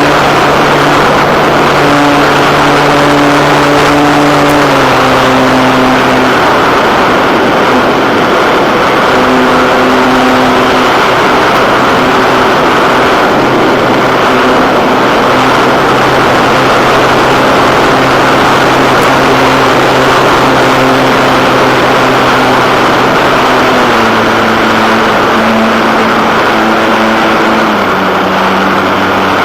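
Motor and propeller of an Art-Tech Wing Tiger model plane in flight, heard through its onboard camera: a steady hum with heavy wind rush over the microphone. The pitch steps with throttle changes, once about five seconds in and again several times near the end.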